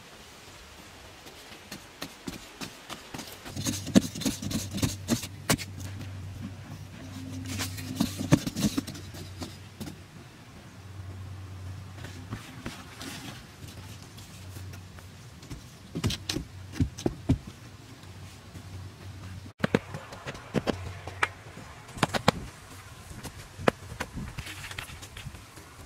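Irregular knocks, thuds and rustling of hand work on a wooden pole frame: poles being handled and lashed together, with feet moving on dry ground.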